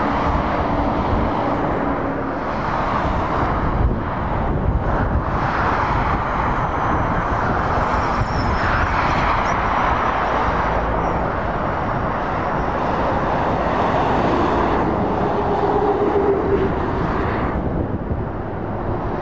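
Motorway traffic going by: lorries and cars passing at speed, their tyre roar and engine noise swelling and easing as each vehicle goes past.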